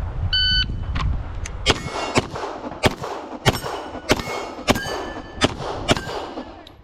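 Shot-timer beep, then a fast string of about eight 9mm shots from a Beretta M9 pistol, roughly two a second, with steel plates ringing as they are hit.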